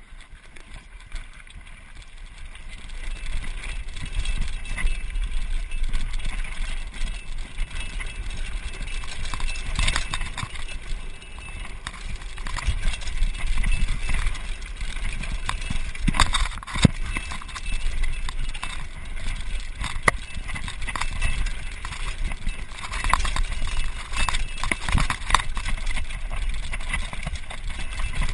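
Mountain bike riding fast down a gravel singletrack: tyres crunching over loose stones and the bike rattling and knocking over bumps. The sound builds over the first few seconds as it gets up to speed.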